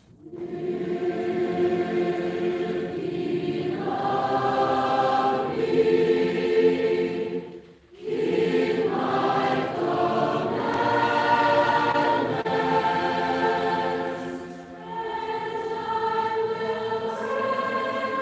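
Large school choir singing sustained chords, coming in together after a silence right at the start, with a short full break for breath about eight seconds in.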